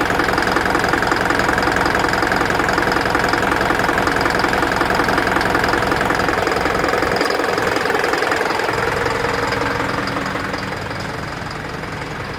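Isuzu NPR truck engine idling with a steady, even, rhythmic clatter, running smoothly now that the loose cylinder-2 injector connection behind code P0202 has been reconnected. It grows a little quieter near the end.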